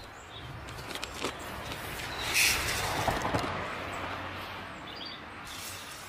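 Outdoor garden ambience: a steady background hiss with a few faint, high small-bird chirps, and a louder rush of noise swelling briefly about two and a half seconds in.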